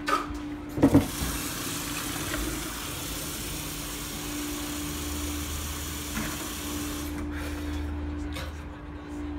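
Kitchen sink faucet running water in a steady stream, shut off about seven seconds in. A couple of sharp knocks come just before the water starts, about a second in.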